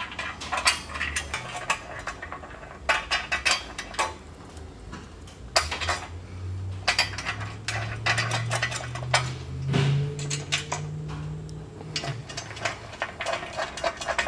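Steel washers and nylock nuts clinking against bolts and a steel channel as they are fitted and spun on by hand: many small, irregular metallic clicks. A low hum runs in the background for several seconds midway.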